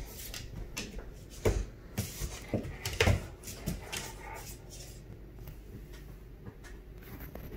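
Two large dogs, a Labernard puppy and its father, playing tug of war over a plush toy, with a cluster of short, loud dog vocalizations between about one and a half and four seconds in. The rest is quieter, with a few faint clicks.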